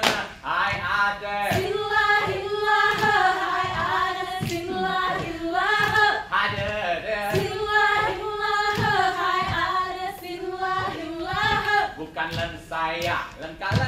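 Group of voices singing a Saman dance song in unison, with sharp claps and slaps sounding at uneven intervals.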